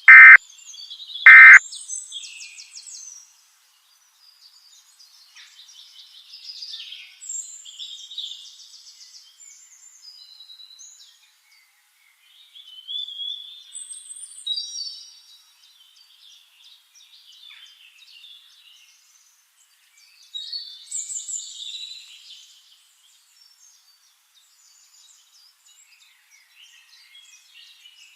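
Two short, very loud electronic data bursts about a second apart, the end-of-message tones of an Emergency Alert System broadcast. Then birds chirp and sing on and off, in scattered phrases with short pauses.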